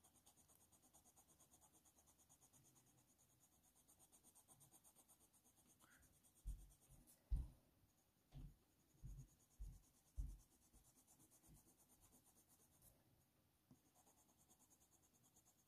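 Very faint coloured pencil strokes on heavy hot-press watercolour paper, pressed hard to burnish down the paper's tooth. Partway through come about six soft, low knocks in quick succession, then near silence again.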